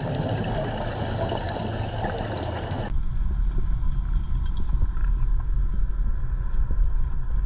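Underwater hiss and crackle of scuba diving with scattered clicks, cut off abruptly about three seconds in by a steady low rumble of a dive boat's idling engine at the quay.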